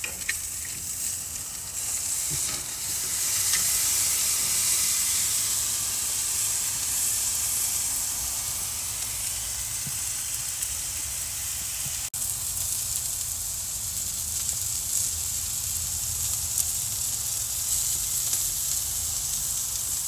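Thick bone-in ribeye steak sizzling on a charcoal grill grate over hot coals: a steady, high hiss.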